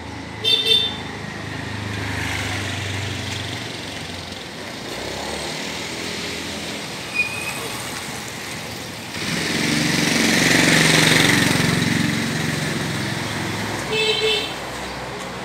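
Street traffic going by, with a vehicle horn giving two quick toots about half a second in and again near the end; a louder passing vehicle engine rises from about nine seconds in and fades after twelve.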